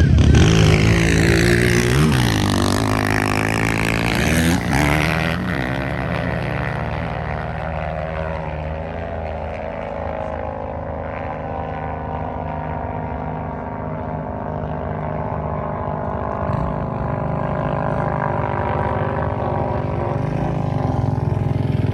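ATV engine running under way, with its pitch shifting and a loud rushing noise over the first five seconds or so, then settling to a steady note.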